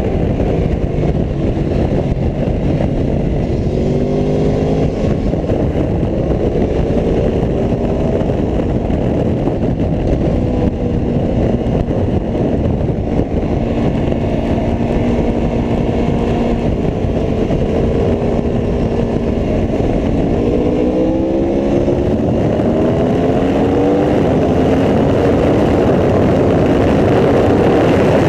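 Aprilia Tuono V4 1100 RR's V4 engine pulling hard on track. Its note climbs several times with a drop between climbs, as through gear changes, holds steadier for a while, then climbs again over a loud, steady rush of wind and engine noise.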